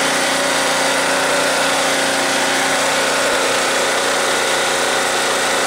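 Proforce 3125 portable generator's small engine running steadily at its governed speed, the generator putting out 60 Hz.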